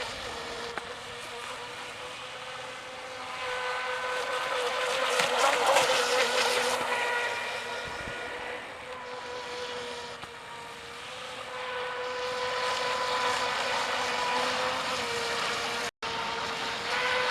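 Pro Boat Stealthwake RC boat running on the water: a steady high whine from its electric motor over a hiss of water, swelling louder twice as the boat passes nearer.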